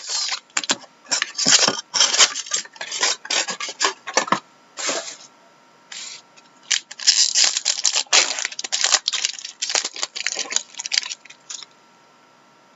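Crinkling, tearing and rustling of trading-card packaging as a hobby box and its card packs are torn open and handled, in irregular bursts that stop near the end.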